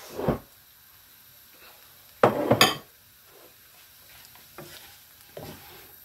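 Wooden spatula scraping and knocking against a non-stick wok while stir-frying sliced cabbage and peppers over a faint sizzle. There is a short scrape at the very start and a louder double scrape about two seconds in, then lighter stirring strokes.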